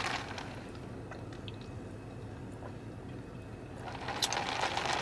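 A low steady car-interior hum. About four seconds in, a rustling, slurping noise with a few sharp clicks comes up as an iced drink in a plastic cup is sipped through a straw.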